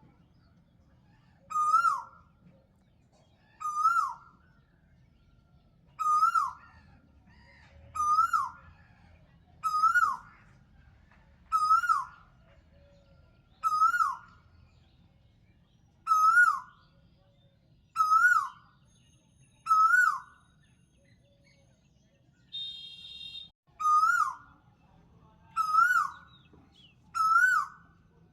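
A bird's call repeated about every two seconds, each note short and rising then dropping sharply in pitch. A brief, different buzzy sound comes in once near the end.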